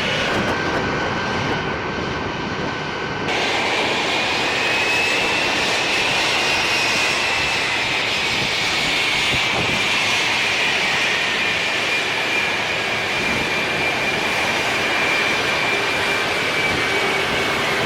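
C-17 Globemaster III's Pratt & Whitney F117 turbofan jet engines running: a steady jet roar with a high whine that rises a little in pitch and then slowly falls. The sound changes abruptly about three seconds in.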